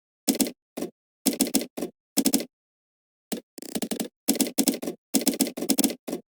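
Typing on a computer keyboard: short bursts of rapid keystroke clicks, broken by pauses of dead silence.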